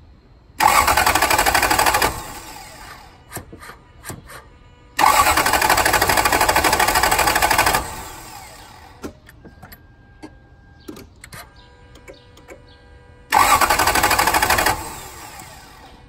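1999 Toyota Land Cruiser 100 Series V8 cranking on its starter three times, for about a second and a half, then about three seconds, then a second and a half, without catching. This is a crank-no-start fault that the owner suspects might be fuel-related.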